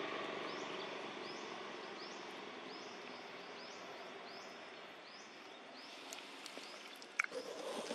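Outdoor ambience: a small animal repeating a short high chirp about twice a second over a fading background rumble, with a sharp click near the end.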